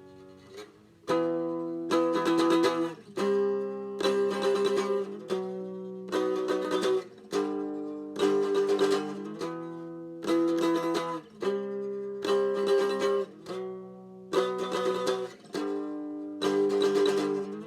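Instrumental passage of chords strummed on an acoustic plucked string instrument, about one strum a second, each chord ringing and fading before the next.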